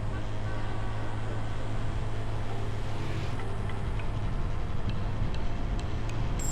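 Motorcycle engine running steadily at cruising speed, with road noise under it and a few faint ticks in the second half.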